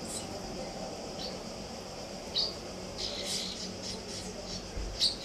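House martin nestlings giving begging calls: short, high cheeps, a few single ones at first, then a quick run of them about three seconds in, with the loudest near the end.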